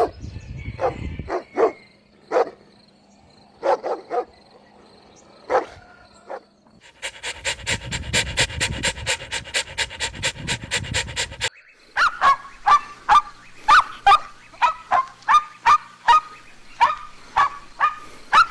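Puppies barking and yapping: scattered short calls, then a fast, even rattling run of calls in the middle, then a steady series of high yaps about two a second.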